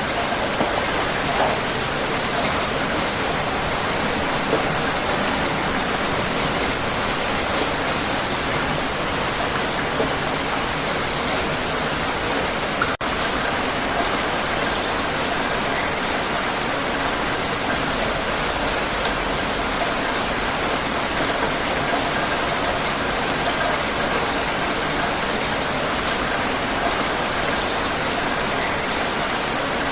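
Heavy rain falling steadily, a dense, even hiss of rain on a surface. About halfway through, the sound drops out for a split second.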